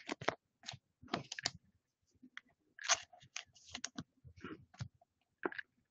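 A stack of football trading cards being flipped and slid against each other in the hands: faint, irregular clicks and rustles of card stock.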